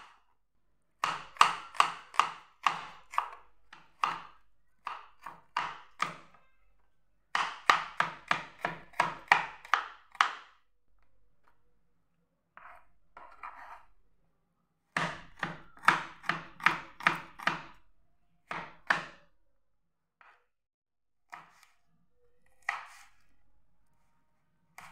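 Chef's knife chopping shallots, garlic and red chillies on a plastic cutting board: quick runs of about four cuts a second with short pauses between them, then a few single cuts near the end.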